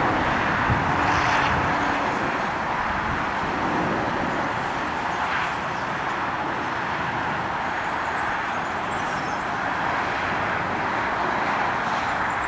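Airbus A340 airliner noise: a steady, even rush of engine and airflow noise with no breaks.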